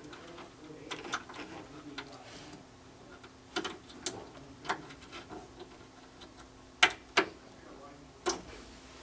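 Small precision screwdriver working the screw of a DVR's green plug-in terminal block while a wire is seated in it: scattered light metal-and-plastic clicks and ticks, with a sharper pair of clicks about seven seconds in.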